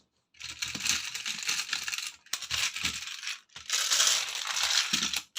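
Loose Lego pieces clattering and rattling as a pile of plastic bricks is stirred and sifted through, in three long stretches of dense small clicks.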